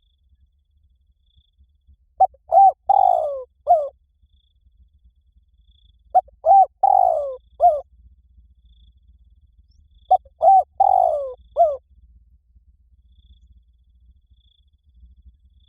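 Spotted dove cooing three times, about four seconds apart. Each phrase has two short notes, a longer falling coo, then a short final note, in the prized 'liu tan' cooing style.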